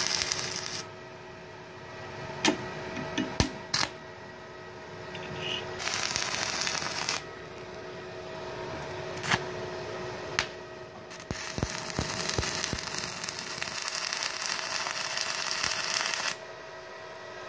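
Stick-welding arc from a Multipro EG200A-SC inverter welder running an LB electrode, crackling and hissing in three stretches: briefly at the start, again about six seconds in, and for about five seconds near the end. In between come sharp taps as the rod is struck against the steel to restart the arc, which is hard to keep going with LB rod on this machine.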